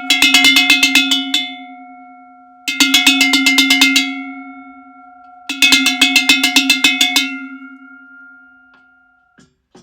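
Handmade long bulged cowbell (campanaccio lungo abbombato) shaken in three bursts of rapid clapper strikes, each a little over a second long, left to ring and fade between them. A light knock comes near the end.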